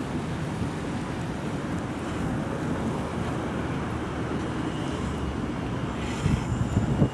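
Steady low rumble of a locomotive-hauled passenger train running along an elevated brick railway viaduct, with wind buffeting the microphone in a few gusts near the end.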